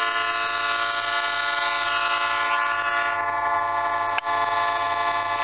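Locomotive horn sounding one long, steady blast with a brief click about four seconds in.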